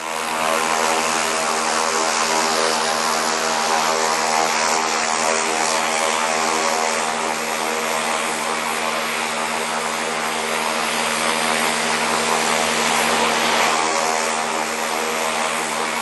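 Camera drone's propellers buzzing steadily in flight: a constant pitched hum with a hiss over it, holding one pitch throughout.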